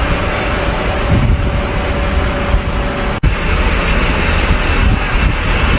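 Heavy machinery running loudly, a dense steady rumble with wind buffeting the microphone. It breaks off sharply a little past three seconds in and a similar rumble carries on.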